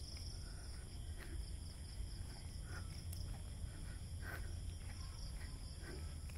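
A steady chorus of night insects chirring at several high pitches, over a low rumble of wind and handling on the phone microphone, with a few faint scuffs of footsteps on the path.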